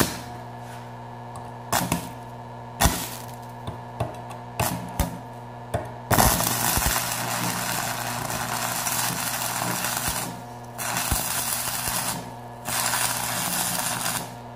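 Small 110-volt Smarter Tools stick welder running a 6013 rod at 70 amps on a steel plate. A few sharp cracks come as the arc is struck, then from about six seconds in the steady crackle of a running arc, which drops out twice briefly.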